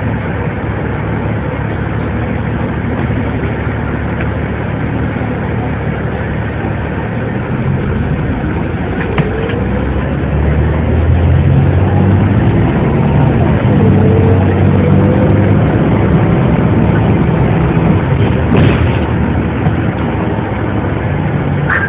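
Cabin noise aboard a moving 2002 ElDorado EZ-Rider II transit bus: steady engine and road noise that grows louder about halfway through, with the engine pitch rising and falling a few times.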